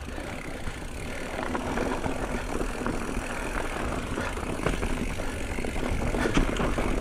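Mountain bike rolling down a dirt trail: rushing wind on the microphone and tyre rumble, with many small rattling clicks from the bike over bumps. It grows gradually louder as speed builds.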